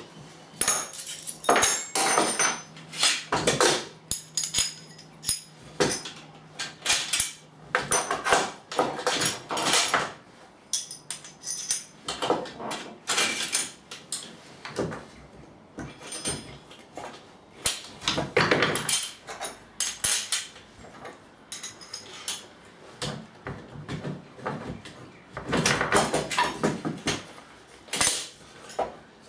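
Small metal parts and hand tools clinking, rattling and knocking on a workbench as pieces are handled and fitted, in irregular clusters with short pauses between; a few clinks near the start ring briefly.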